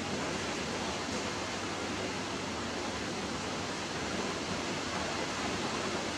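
A steady, even hiss that does not change, with no distinct sounds standing out.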